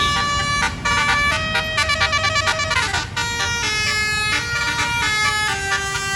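Basuri 'telolet' multi-note bus air horn playing a melody of held notes, the pitch stepping to a new note every second or so.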